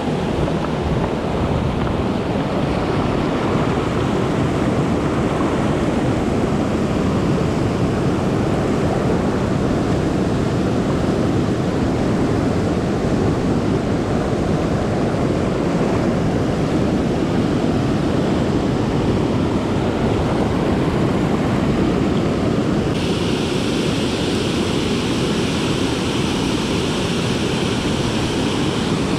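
Water rushing steadily over a dam spillway and through shallow rocky rapids, a loud unbroken wash of white water. About three-quarters of the way through, a brighter hiss suddenly joins it.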